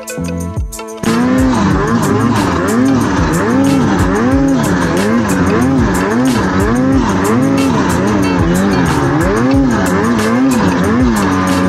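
Snowmobile engine revving up and down over and over under load as the sled climbs a steep slope in deep snow; its pitch rises and falls more than once a second. It cuts in about a second in, after a moment of music.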